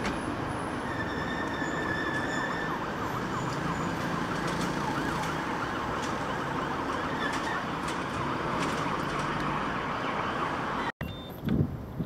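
Distant emergency-vehicle siren rising and falling over a steady rumble of train and city noise. The sound breaks off abruptly near the end.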